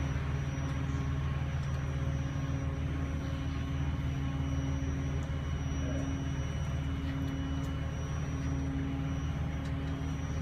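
Boat engine running steadily under way, a low even drone with a few steady tones.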